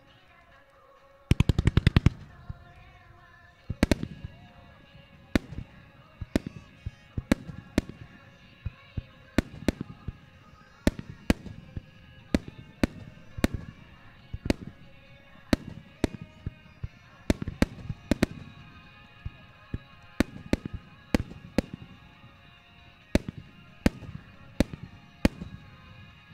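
Fireworks shells bursting in a steady run of sharp bangs, about one or two a second, with a fast string of rapid reports about two seconds in. Music plays underneath, as in a pyromusical where the fireworks are timed to a soundtrack.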